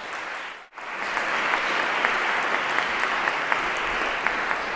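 Audience applauding, a dense patter of clapping. It cuts out for an instant less than a second in, then resumes louder.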